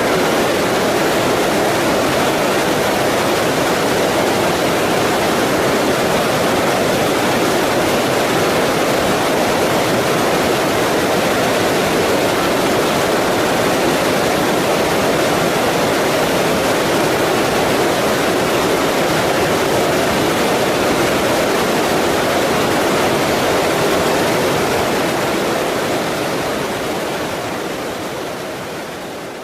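Waterfall: a loud, steady rush of falling water that fades out near the end.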